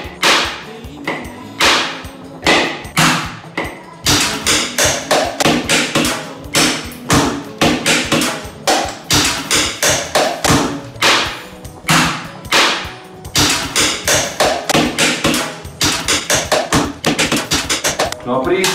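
A heavy kitchen knife repeatedly striking a whole coconut to crack its shell open: a long run of hard knocks, about two to three a second, with a brief pause near the start.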